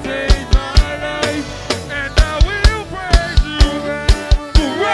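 Band music driven by a full drum kit, with a quick, steady kick-drum beat and snare hits under a melody line that bends in pitch.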